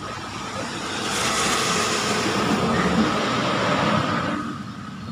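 A rushing background noise that swells about a second in, holds, and fades away about four and a half seconds in, with a faint steady tone running through it.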